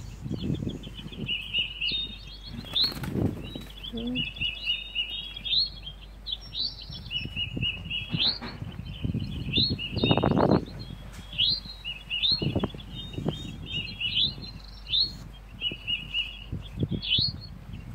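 A bird chirping over and over in short, high calls that rise at the end, with low rustling throughout and a louder rustling burst about ten seconds in.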